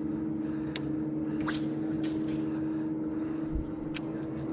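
Boat motor running with a steady hum, with a few brief sharp high-pitched sounds over it.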